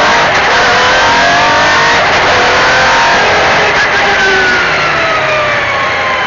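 MG Metro 6R4 Group B rally car's V6 engine running hard, its revs climbing in steps through the first few seconds, then the pitch falls steadily over the last two seconds as the revs drop.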